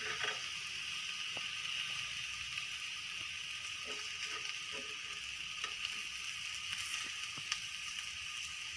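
Sugar syrup sizzling steadily in a frying pan around coated banana vadas, with a few light clicks of a metal slotted spatula against the pan.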